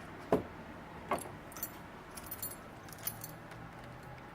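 Small metal tools and parts clinking and jangling as they are handled to change the dies: a sharp knock about a third of a second in, another about a second in, then a run of light clinks.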